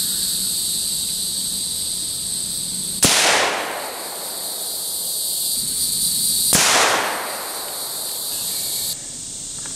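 Two rimfire rifle shots about three and a half seconds apart, one from a Marlin 17 HMR and one from a CZ 457 .22 WMR, each followed by a short echo. Insects chirr steadily in the background.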